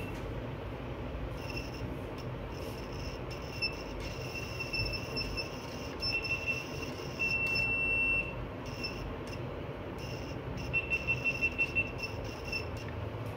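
Electronic buzzer of a steady-hand buzz-wire game beeping in short, irregular bursts each time the loop touches the wire, a fail. There is one longer unbroken beep partway through and a quick run of about half a dozen beeps near the end, over a steady low background hum.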